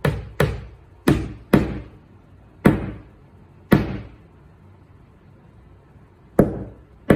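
Claw hammer driving a nail into a wall: about eight sharp blows, quick at first and then spaced further apart, with a pause of over two seconds before the last two.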